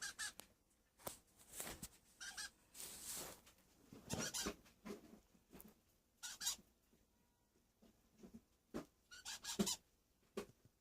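Eclectus parrot giving short, squeaky calls, about half a dozen, spread over several seconds with gaps between them.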